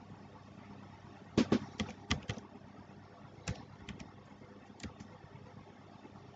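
Computer keyboard keystrokes: a quick run of about six keys, then a few scattered single clicks, over a quiet background.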